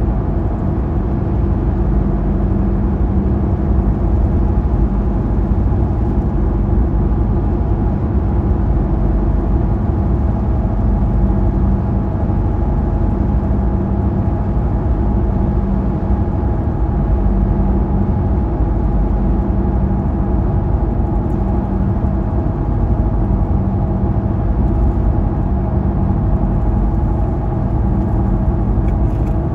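Car driving at steady highway speed, heard from inside the cabin: constant road and tyre noise with a steady low hum.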